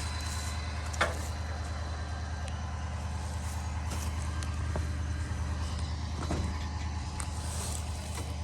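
An engine running steadily with a low hum, and a sharp knock about a second in.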